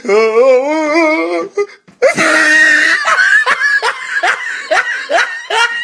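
A person laughing hard: first a long wavering squeal, then a loud burst about two seconds in, then a run of short rapid laughs about three a second.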